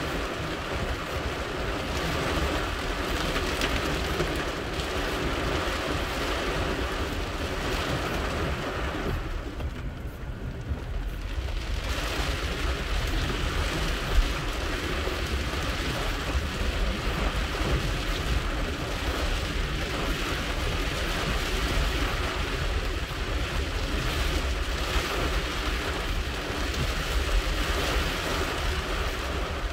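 Heavy rain drumming on a car's roof and windshield, heard from inside the cabin, over the low rumble of the car moving on the wet road. The rain goes softer for a couple of seconds about a third of the way in, and there is one sharp knock near the middle.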